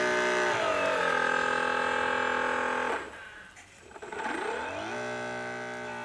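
Instrumental background music: a sustained droning tone with many overtones, its pitch gliding down about half a second in, dropping away briefly around the third second, and gliding back up before the fifth.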